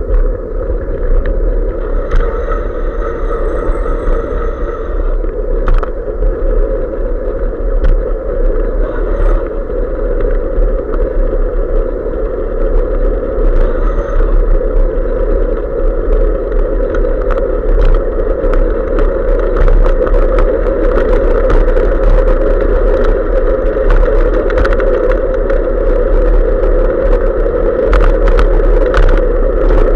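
Wind and road rumble picked up by a bicycle-mounted SJ4000 action camera while riding, with many small clicks and rattles from bumps in the road. The rattling gets busier and the rumble a little louder in the second half.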